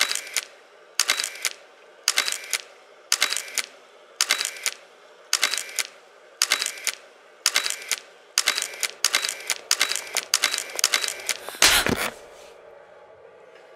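Camera shutter firing over and over, each release a sharp double click, at about one a second and then faster, about two a second. A louder, heavier thump near the end.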